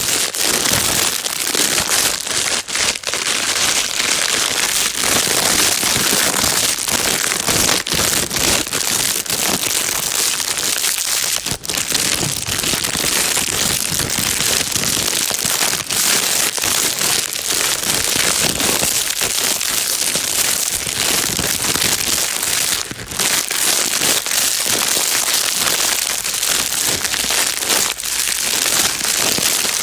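Plastic bag being crinkled continuously: a dense, steady crackling rustle, with a couple of brief drops in loudness.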